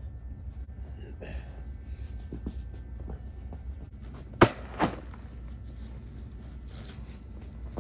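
A bag dropped onto snow-covered paving: two sharp thuds about half a second apart, over a steady low rumble.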